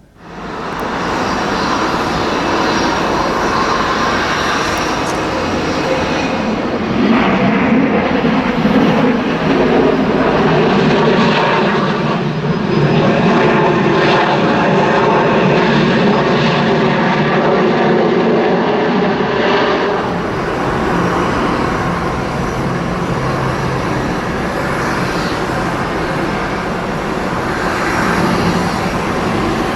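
McDonnell Douglas MD-83 jet airliner's twin rear-mounted Pratt & Whitney JT8D turbofans running loud and steady, a continuous jet roar.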